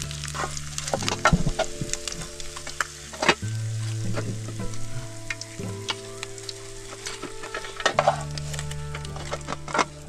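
Trout frying in hot oil in a pan, sizzling with many irregular crackles and spitting pops.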